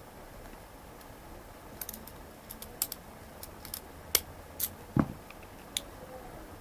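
Scattered small metallic clicks of a feeler pick and tension wrench working the pins of a solid brass Yale padlock, during single-pin picking. There is a duller knock about five seconds in.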